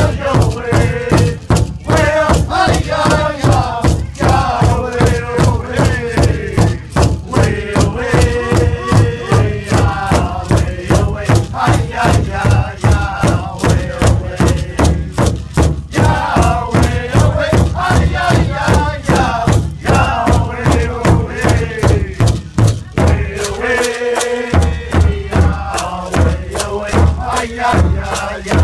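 Powwow drum group: several men beating one large hide drum together with padded sticks in a steady beat of about two to three strokes a second, while singing in unison over it. The drumbeat drops out for a moment about three-quarters of the way through, then picks up again under the singing.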